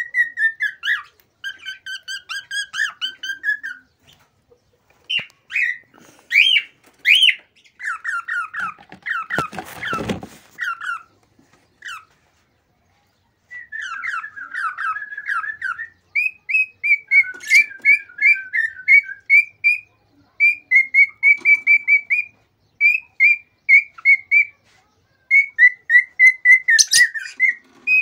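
Male cockatiel singing an excited courtship song: phrases of rapid, repeated whistled notes broken by short pauses, with a few rising chirps, and a harsh noisy burst about ten seconds in.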